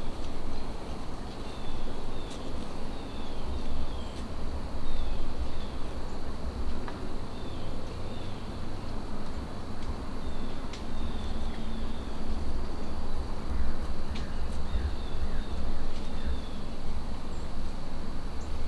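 Outdoor evening ambience dominated by wind rumbling on the microphone, with many short, high, falling chirps repeating through it and a faint steady high trill behind.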